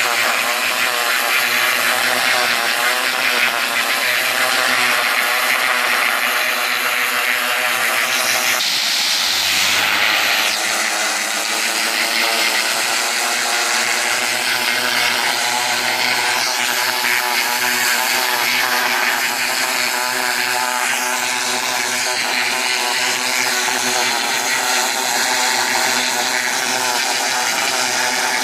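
Pressure washer running steadily while its high-pressure jet blasts moss and grime off terracotta roof tiles: a constant machine drone under the hiss of the spray. The sound changes briefly about nine seconds in.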